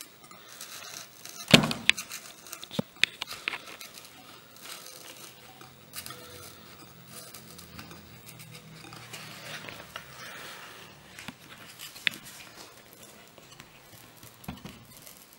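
Handling noises of hand work on a model glider wing: one sharp click about one and a half seconds in, a few lighter clicks after it and again near the end, and faint rustling between.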